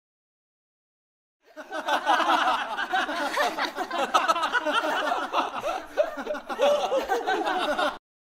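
Many voices talking and laughing over one another in an unintelligible, jeering babble. It starts about a second and a half in and cuts off abruptly near the end.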